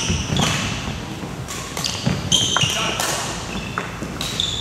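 Badminton doubles rally on an indoor court: sneakers squeak on the court floor and rackets strike the shuttlecock with sharp pops.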